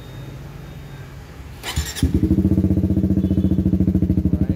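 Suzuki GSX-R150's single-cylinder engine, breathing through a CLD X Monster aftermarket exhaust with its dB killer removed, starting up about two seconds in and settling into a loud idle with rapid, even exhaust pulses.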